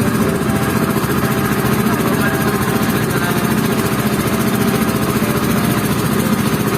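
A small boat's engine running steadily at an even speed, with a fast, regular chugging.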